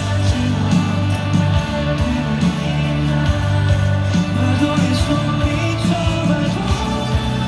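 Loud live band music from a rock-pop song, with a steady drum beat under sustained pitched instruments.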